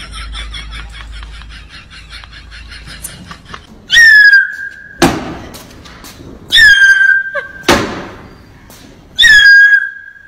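Three loud whistle tones, each sliding down a little and then holding for about a second. Each is followed by a sharp thud. Before the first whistle, a quick rhythmic pulsing fades out.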